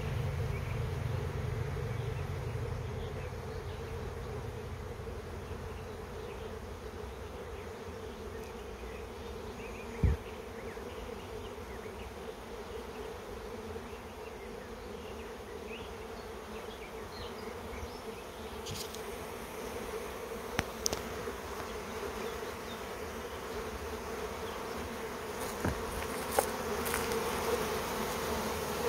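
Steady, loud buzzing hum of a honeybee swarm in flight: a large part of the colony leaving the hive with the old queen. A short thump about ten seconds in and a few sharp clicks in the last third stand out over the hum.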